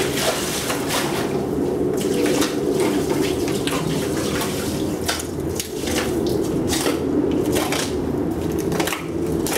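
Water sloshing and splashing as a plastic tub of water is handled and poured out onto a concrete floor, with many small knocks and clatters of the tub.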